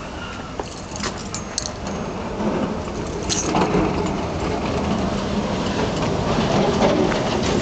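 Vintage trolley streetcar approaching and rolling past on its rails, its rumble and low hum growing steadily louder, with a few sharp clicks about a second in.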